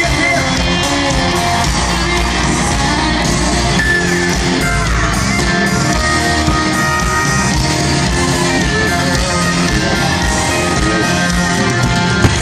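Live country-rock band playing loud, with electric guitars and drums, recorded from among the concert crowd.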